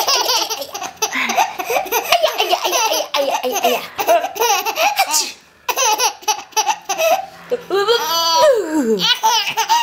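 A baby laughing hard in a run of high-pitched giggles and squeals, with a short pause about halfway through and a long falling squeal near the end.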